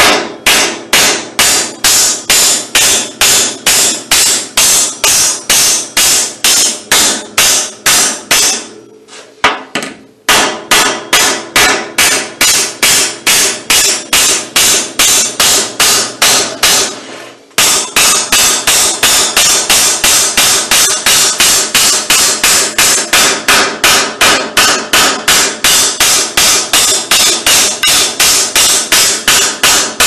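Hand hammer striking the rivets in a Flexco Alligator rivet belt-lacing tool, setting the rivets of a baler-belt splice with many quick, even blows, about three a second, several hits per rivet. The hammering stops for about a second roughly a third of the way in, and briefly again a little past the middle.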